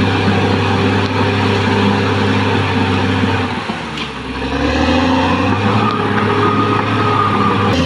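Caterpillar D6R XL bulldozer's diesel engine running steadily. About three and a half seconds in, its pitch and loudness drop briefly, then climb back up.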